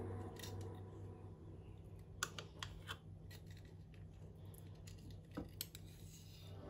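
Faint clicks and light taps of a spoon knocking against glass jars while cream is spooned in: a few quick clinks about two to three seconds in, and two more about five and a half seconds in.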